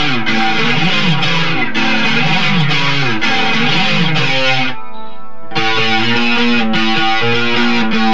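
Electric guitar playing a lead line: notes slide up and down for the first four seconds, and a short, duller held note follows about five seconds in. Then come quick, evenly repeated picked notes.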